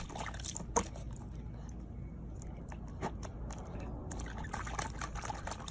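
Corgi puppy splashing and pawing at water in a small plastic tub: scattered small splashes and clicks over a steady low rumble.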